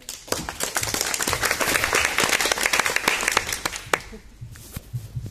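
Small audience applauding: dense clapping that starts suddenly, then thins to a few scattered claps and dies away about four seconds in.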